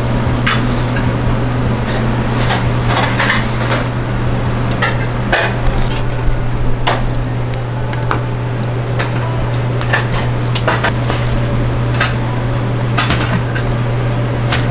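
Knife work on a plastic cutting board while trimming yellowtail fillets: irregular light taps, knocks and scrapes of the blade and fish pieces on the board, over a steady low hum.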